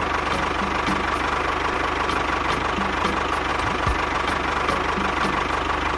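An engine idling steadily with a fast, even knock.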